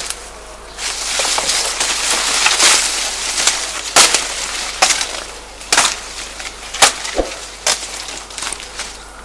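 Knife chopping into sugarcane: sharp cracks roughly once a second, the loudest about four seconds in, with a rustling hiss before them.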